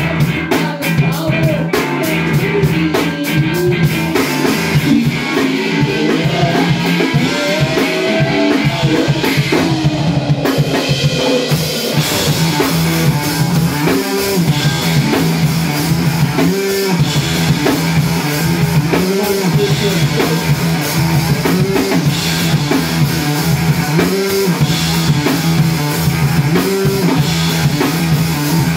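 Live rock band playing loud: drums on a Sonor kit and guitar, with fast cymbal strokes in the first few seconds.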